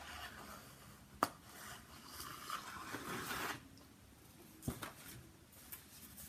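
Handling noise as cut-out story figures and a scenery backdrop are pulled from the slots of a wooden storytelling board: a sharp click about a second in, a rustling scrape, then another knock, with a few faint ticks near the end.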